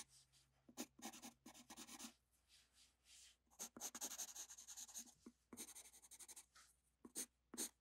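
Pencil sketching on drawing paper: faint, quick scratching strokes in several short runs with brief pauses between them.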